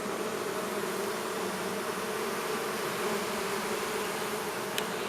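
Many honeybees buzzing around an opened hive, a steady, dense hum.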